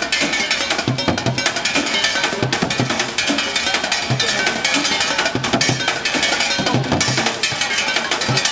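Street drummer playing fast rhythms with sticks on an improvised kit of plastic jerry cans, a metal pot, a bucket, a metal can and an aluminium suitcase. Low thumps recur under a dense run of quick, sharp strokes.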